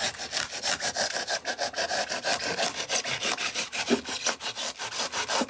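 The saw blade of a Leatherman multi-tool sawing through cured spray foam insulation in quick, even back-and-forth strokes.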